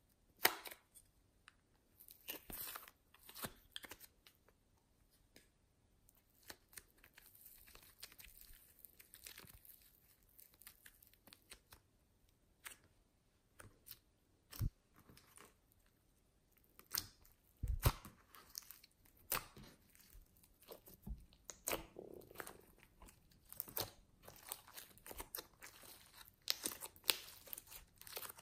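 Hands working soft modelling clay and clear slime: irregular soft crackles, clicks and tearing sounds as the clay is pressed in a plastic mould and then kneaded into the slime, with a few sharper knocks.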